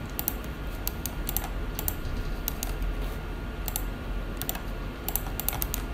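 Irregular clicking of a computer keyboard and mouse, some clicks in quick runs, over a steady faint hum.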